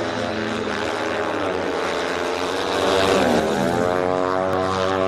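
Several single-cylinder speedway motorcycle engines running hard at high revs as the bikes race on the dirt oval. Their pitch swoops down and back up about halfway through.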